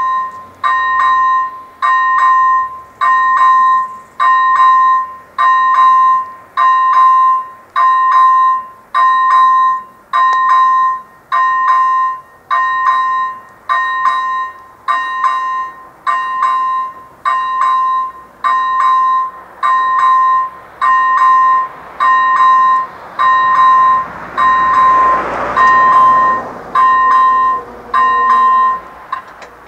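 First-generation electronic bell of an AŽD 97 level-crossing warning signal, ringing a two-tone electronic ding about once a second to warn of an approaching train. A brief rushing noise swells and fades a few seconds before the end, and the bell stops near the end as the barriers come down.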